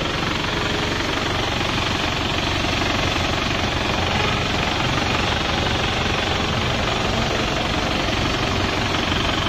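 Diesel engine running steadily while it is fed cleaning fluid from a purging canister during an engine-decarbonising (purge) treatment.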